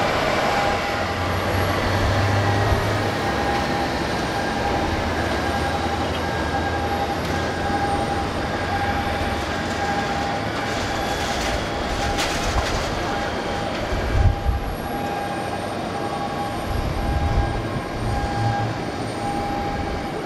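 Steady turbine whine and rushing noise from a parked Boeing 787-8 airliner at the gate, with a few low thumps in the second half.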